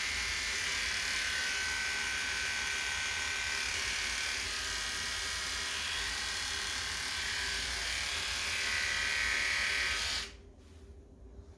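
Electric dog grooming clippers buzzing steadily as they reverse-clip a Bedlington Terrier's ear against the grain. The buzz cuts off suddenly about ten seconds in as the clippers are switched off.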